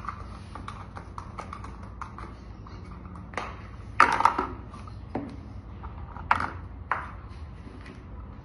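Spatula scraping and knocking against a container, scooping out the last of the homemade soap mixture. It starts as quick light taps, then a cluster of loud clattering knocks about four seconds in, followed by a few single knocks.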